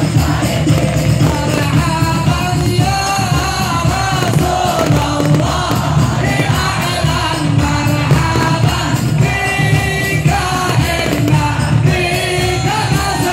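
Devotional singing of the qiyam, the standing salutation to the Prophet at a maulid, by a large body of voices over loudspeakers. Long, held melodic lines slide between notes above a steady low percussion beat.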